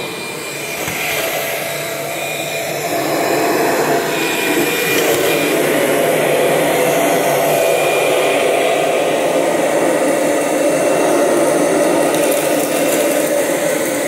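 2000 Limited Edition Kirby Generation 6 upright vacuum running steadily as it is pushed across the floor, growing louder about three seconds in. It sounds as if it has not lost suction.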